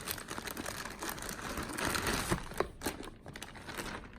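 Thin plastic bag crinkling and rustling as a vinyl doll part is handled and pulled out of it, with sharp crackles, for most of the time before it goes quiet near the end.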